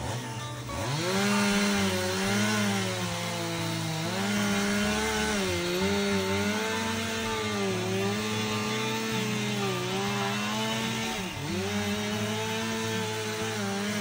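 Gas chainsaw revving up and cutting into the base of a pine trunk. The engine pitch sags under load and picks up again every second or two.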